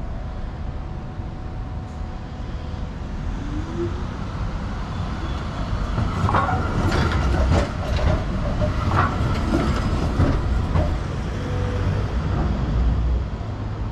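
Tram running along street rails, its wheels rumbling louder as it comes close. Rattles and clicks come from about halfway through, with a few brief wheel squeals.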